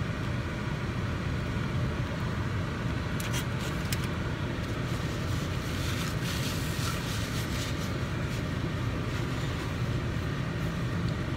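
Steady low hum of a parked car running, heard inside the cabin, with a few faint clicks and rustles of chewing and a paper napkin a few seconds in.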